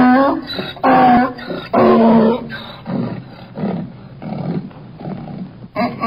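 Donkey braying: three loud, pitched hee-haw notes in quick succession, then a few seconds of quieter, breathier pulses as the bray runs down. A new long bray starts near the end.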